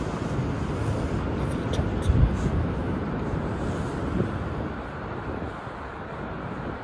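Steady wind rumble on the microphone, with a single low thump about two seconds in.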